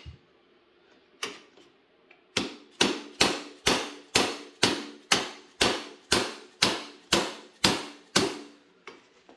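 Hammer taps on a motorcycle exhaust section being driven into place: one lone strike, then about thirteen sharp, evenly spaced taps at about two a second.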